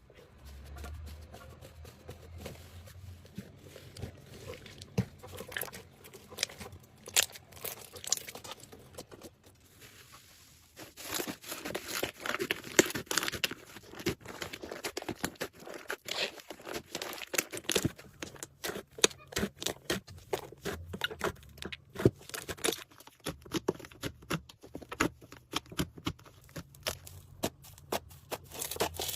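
Slime being squeezed and worked by hand, giving a stream of small crackling and popping clicks that grows much busier after the first third.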